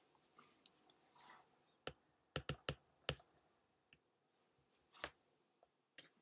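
Faint, sharp clicks and taps in near silence: a quick cluster of about five around two to three seconds in, then a few single clicks near the end.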